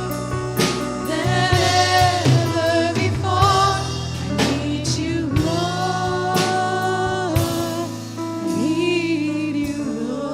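Live church worship music: a singer holds long notes over a band with drums and cymbal hits.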